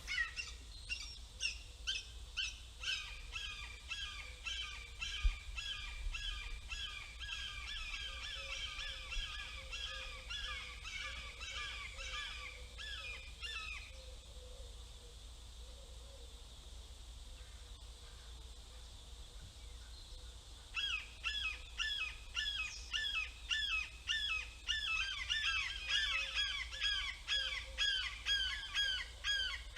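Hawk calling in a fast series of sharp, repeated notes, about three a second. The series stops about halfway through, and after a pause of several seconds starts again.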